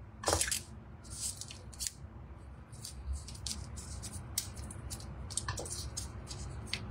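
Frozen kaffir lime leaves being torn by hand: a run of irregular crisp crackles and snaps, the loudest about half a second in.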